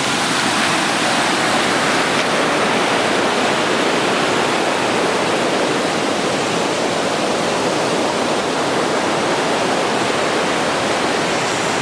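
Fast-flowing river in a gorge rushing steadily, an even wash of water noise, its flow still raised by heavy rain two days earlier.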